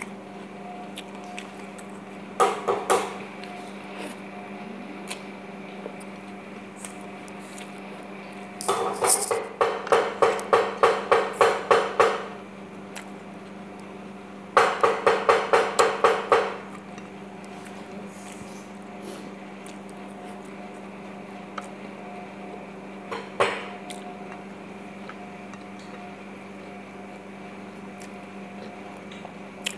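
Bursts of rapid knocking or pounding, about three to four strokes a second, each burst lasting from one to three seconds, with a steady hum underneath.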